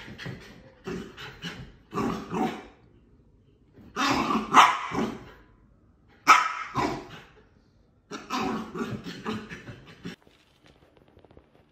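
Small dog barking and growling in repeated bouts of quick barks, its head down in the gap between a sofa cushion and the armrest; it stops about ten seconds in.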